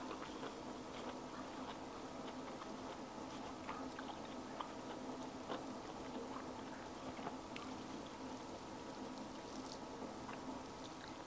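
A person eating by hand: quiet chewing and small scattered clicks of fingers at the plate, over a steady faint hum.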